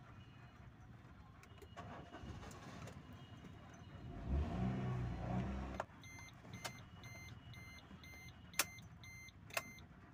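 A short low rumble about four seconds in, then an electronic beep repeating about twice a second for roughly three seconds, with a few sharp clicks among the beeps.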